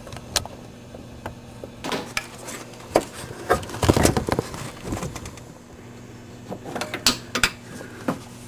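Scattered knocks, clicks and scraping from hands working at a car's plastic wheel-well liner, with a busy patch of rattling about four seconds in and a few more sharp clicks near seven seconds. A steady low hum sits underneath.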